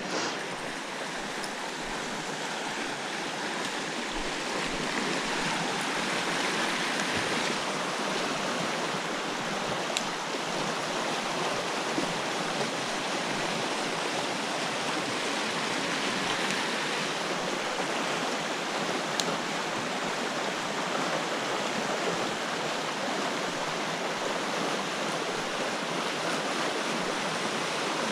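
Fast-flowing creek water rushing over shallow rapids, a steady even rush with a couple of faint ticks partway through.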